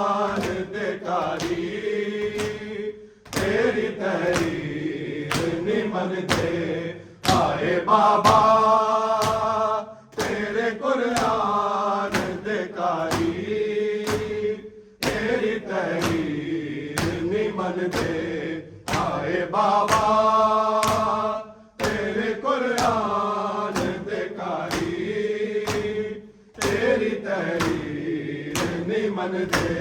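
Mourners' voices chanting a noha in repeated phrases of a few seconds each, with short breaks between lines. A regular beat of sharp strikes, hands slapping chests in matam, keeps time under the chant.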